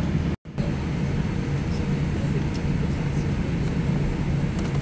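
Steady cabin noise of a Boeing 787 taxiing, heard from inside: a low engine hum and rumble with a faint steady whine. The sound cuts out for a split second about half a second in.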